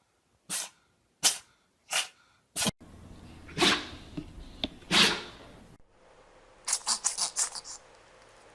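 Dogs sneezing, in three short runs. First about four quick sharp sneezes roughly two-thirds of a second apart, then two bigger sneezes, then near the end a rapid string of about seven small sneezes.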